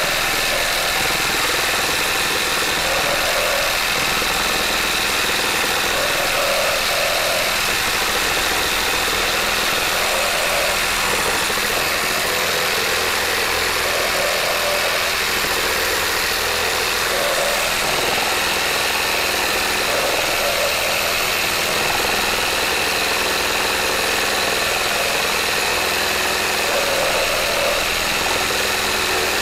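Makita JR3050T corded reciprocating saw running steadily under load, its Bosch S 1542 K wood blade cutting through a thick timber beam.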